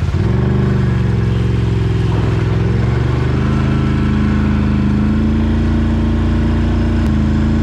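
Can-Am Renegade 800 ATV's V-twin engine running under way: the revs dip briefly at the start and pick up again, then hold steady.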